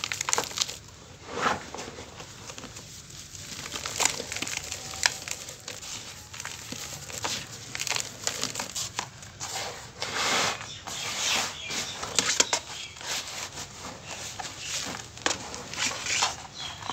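Dry cement crumbles and sand pouring from a hand and crumbling through a plastic colander into a plastic tub. A grainy hiss is broken by many small, irregular clicks as grains and lumps strike the plastic.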